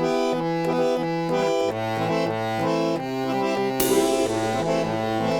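Electric chord organ playing sustained reedy chords over a bass line that steps back and forth between two notes about every half second. A sudden hiss cuts in about four seconds in and fades.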